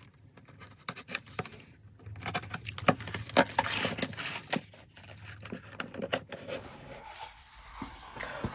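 A tight cardboard mailer box being worked open by hand. The cardboard scrapes and rubs, with scattered clicks and taps as the tucked-in flap is pulled free and the lid lifted.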